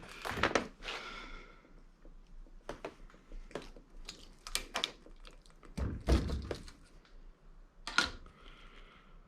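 Hand tools knocking and clinking on the metal of an electric motor being stripped for its copper windings. There is a sharp ringing metal hit near the start and another about eight seconds in, with a duller, deeper thump around six seconds.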